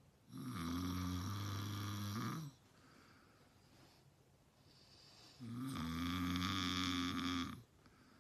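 A man snoring loudly: two long snores of about two seconds each, with a quiet pause of about three seconds between them.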